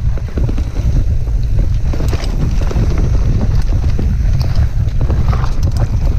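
Mountain bike rattling and clattering as it rides fast down a rough dirt trail, its tyres and frame knocking over bumps in quick irregular hits, under heavy wind rumble on the camera microphone.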